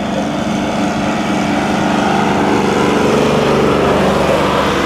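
Motorcycle engine running steadily while riding along a road, joined by a diesel farm tractor's engine that grows louder about halfway through as the bike draws alongside it.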